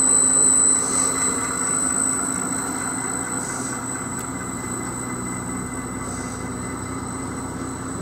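Quantum WF6000 waterfall topping applicator running: the gear motor and blue belt conveyor hum steadily, with a thin high whine. A little louder in the first second, then even.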